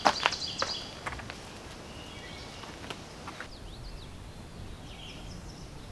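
A few short clicks and rustles in the first second as the awning's Velcro straps are hooked onto its bars. Birds chirp in the background.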